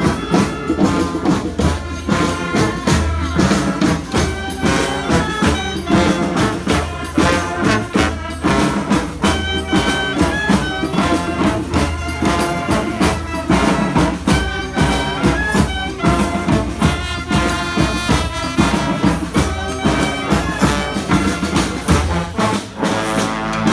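Live murga street band playing: brass instruments carrying the melody over a steady beat of drums and percussion.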